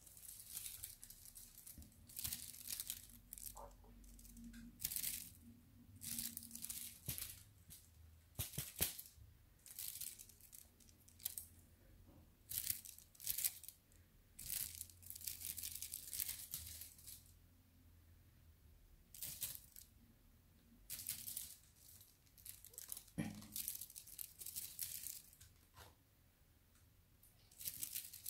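Short crinkling, rustling noises repeating about once a second, bright and hissy.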